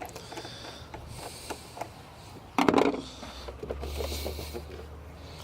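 Hand tools and engine parts clicking and scraping as a part is removed from a car's engine bay, with a short loud clatter about two and a half seconds in.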